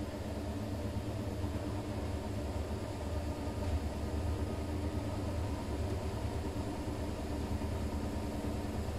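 Siemens iQ500 front-loading washing machine running, its drum motor giving a steady low hum with a few steady tones.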